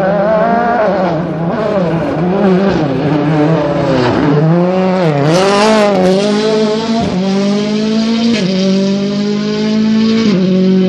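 Rally car engine passing at speed. The revs rise and fall in quick lifts, then dip sharply about four seconds in as the car slows for the corner. It is loudest as the car goes by, then climbs steadily in pitch, with brief drops at gear changes, as it accelerates away.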